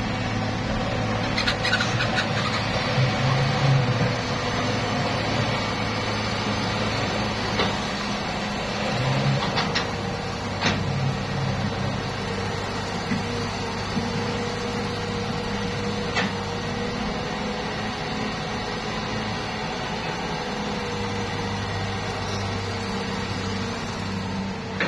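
Diesel engines of a Hitachi hydraulic excavator and a Mitsubishi Colt Diesel dump truck running steadily while the excavator digs, with a few short sharp knocks from the digging.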